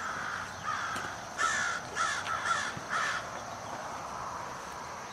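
A crow cawing: a run of about six short caws in the first three seconds, then it stops.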